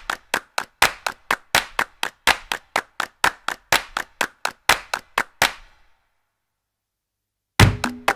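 A steady rhythm of sharp claps, about four a second, that stops about five and a half seconds in. Near the end, after a short gap, percussive music begins.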